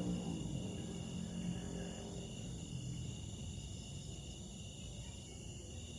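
A cat's low growl trails off over the first two seconds, over a steady high chirring of insects.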